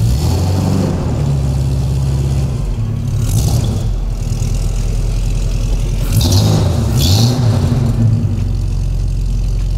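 Vintage Bentley's engine running steadily, revved up and back down briefly about six seconds in.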